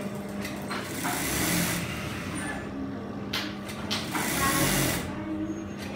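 Brother industrial single-needle lockstitch sewing machine stitching in several short bursts as fabric is fed through, with a steady low hum between the runs.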